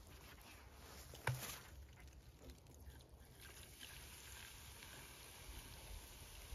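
A sharp knock about a second in, then vinegar pouring from a plastic gallon jug into a plastic tub: a steady splashing stream that begins about halfway through and keeps going.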